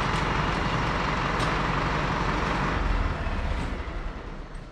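Tractor engine running steadily with a low rumble, then dying away over about the last second.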